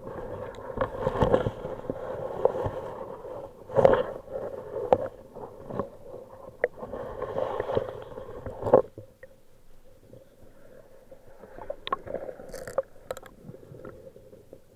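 Muffled water noise heard underwater, with irregular knocks and clicks; the loudest knocks come about four seconds in and again near nine seconds, and it is quieter after that.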